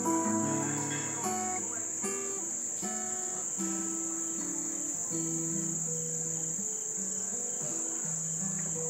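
Crickets chirping in a steady high trill, over slow background music of single held notes that change about once a second.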